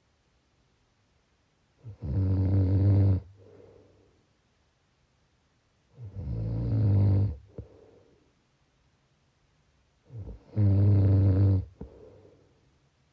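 A person snoring: three loud, low-pitched snores about four seconds apart, each followed by a fainter, breathier breath.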